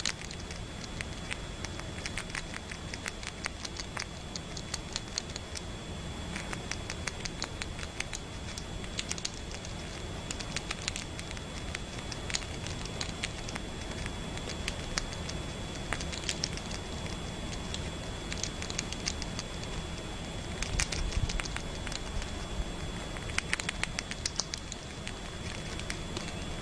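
A squirrel chewing a piece of fruit held in its paws, making quick wet crunching clicks that come in runs.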